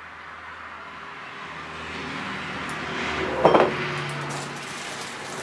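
A road vehicle passing, its sound building gradually to a peak about three and a half seconds in and then fading.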